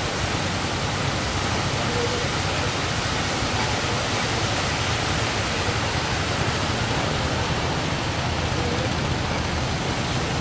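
Steady, loud roar of heavy surf breaking, without separate crashes standing out.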